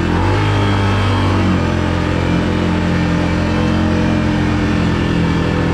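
Can-Am ATV engine running loud and steady with its throttle stuck wide open, a fault left after the quad was swamped in water.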